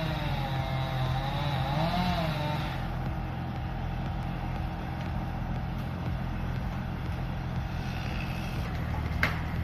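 An engine running, its pitch wavering up and down for the first few seconds and then holding steady, with a couple of sharp cracks near the end.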